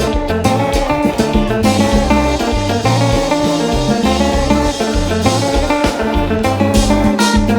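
Live konpa band playing an instrumental passage: guitar lead over bass guitar and drum kit.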